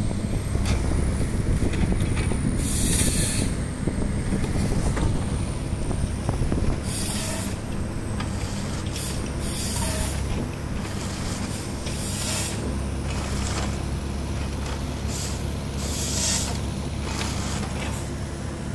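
Komatsu tracked log processor running: steady diesel engine and hydraulic drone, broken by about six short, high-pitched bursts as the harvester head's saw cuts through logs.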